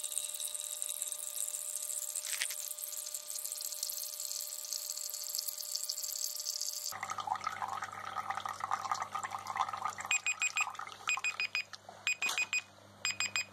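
A thin stream of water from an aquarium pump's return hose splashes into a plastic measuring jug during a one-minute flow test. About seven seconds in, the splashing turns lower and fuller. In the last few seconds a phone's countdown timer alarm beeps repeatedly to mark the end of the minute.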